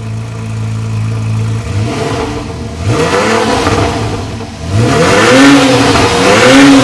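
Car engine idling with a steady hum, then revved up and down again and again, the revs getting louder about two-thirds of the way through.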